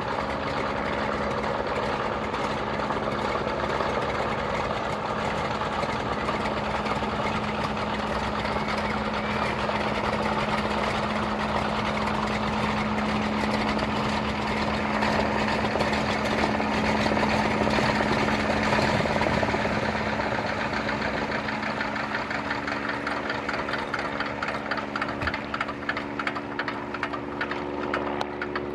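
De Havilland Canada DHC-2 Beaver floatplane's nine-cylinder Pratt & Whitney R-985 radial engine running as the plane taxis on its floats. It is steady and loudest about two-thirds of the way through, then throttles back, quieter, with a distinct pulsing beat in the last several seconds as the plane comes up to the dock.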